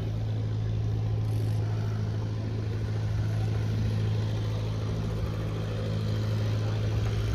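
Boat engine idling steadily, a constant low hum that holds one pitch.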